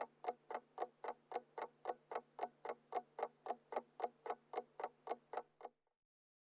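Mechanical alarm clock ticking steadily, about four ticks a second, then stopping abruptly shortly before the end.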